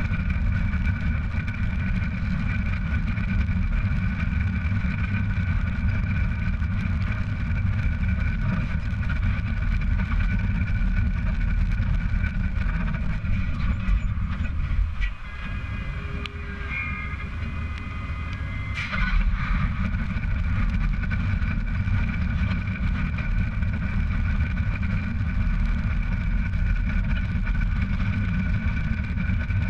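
Heavy trailer rolling along a paved road, heard from right beside its tyres: a steady low road rumble with a few high whining tones. The rumble eases for a few seconds around the middle and picks up again after a short sharp noise.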